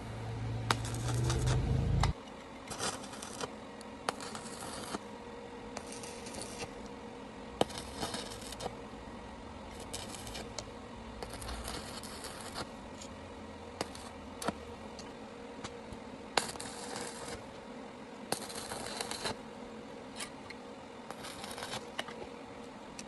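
Welding of two small steel parts in short tacks: crackling hiss bursts of about half a second to a second each, with pauses and scattered sharp clicks between them. A low hum stops about two seconds in.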